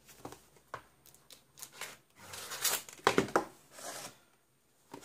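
Cardboard DVD box set being turned over and its inner case slid out of the slipcase: card scraping and rubbing against card, with a few light knocks on the wooden tabletop. The loudest scraping comes just past the middle.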